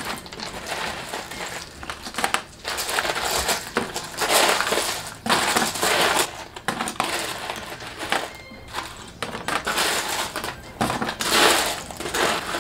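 Chopsticks clicking and scraping through sugar-coated candied fruits and lotus seeds in round candy boxes. The candied pieces rattle against each other and against the box and lid in quick, uneven clatters.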